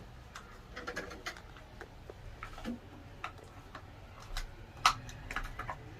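Scattered light clicks and taps of hands and tools working at a wall electrical box, a few a second at times, with the sharpest click about five seconds in.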